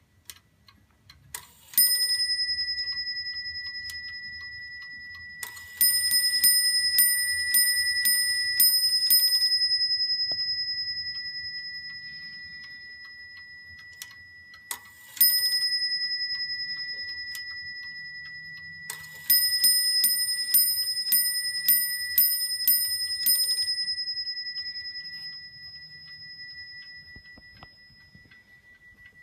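Antique French Vincent et Cie 8-day mantel clock striking on its bell: a single strike, then a run of about eight strikes, another single strike, then a run of about nine, each ringing on and fading slowly. The movement ticks faintly and evenly underneath.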